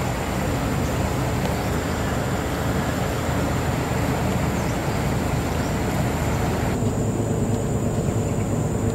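A river cruise boat's engine running steadily under way, a low drone with hiss from the water and air over it. The upper hiss thins out suddenly about seven seconds in.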